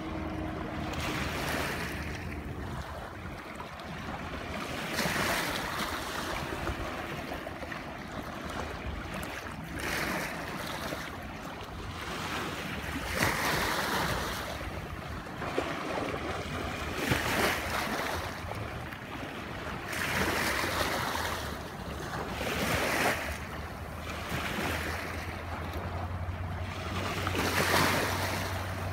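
Small waves washing in every three to four seconds, with wind buffeting the microphone. Near the end a low steady hum comes up, the 20 HP outboard on the passing inflatable boat.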